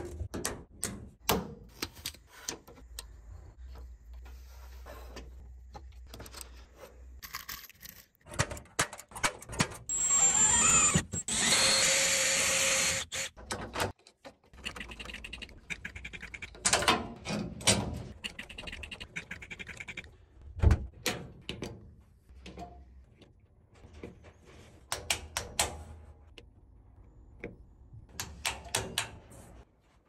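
Hand-tool work on a metal cabinet: sharp snips and clicks as flush cutters trim a cable tie, then a power drill runs in two bursts for about three seconds near the middle. After that comes the scraping and clicking of a hand screwdriver fixing a small plastic switch, with scattered knocks and one hard thump.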